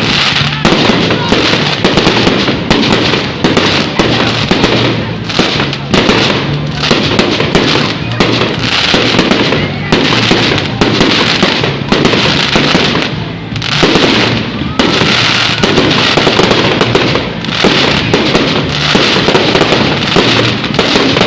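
Fireworks display: rapid, almost unbroken bangs and crackling from many shells bursting one after another.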